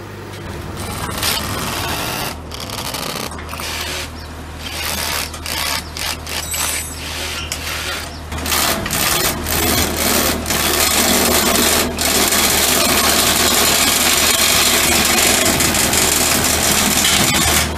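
Electric hammer drill boring into concrete to set expansion anchor bolts. It runs in short stop-start bursts at first, then in one long steady run.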